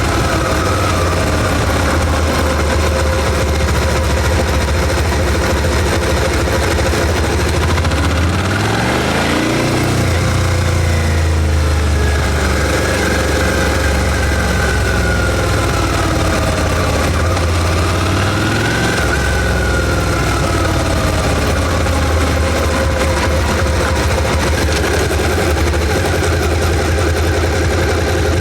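Suzuki SV650's 645 cc V-twin engine on its stock exhaust, running at low speed. Its pitch rises about a third of the way in, falls slowly, then rises and falls again just past the middle as the throttle is opened and closed.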